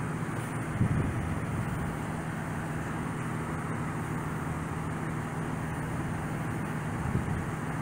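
Steady traffic and idling-engine noise with a low, even hum, and a brief bump about a second in and again near the end.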